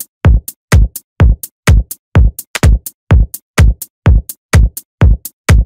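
Electronic music: a bare drum-machine beat with no melody, a deep kick drum about twice a second, each followed by a short, bright high hit.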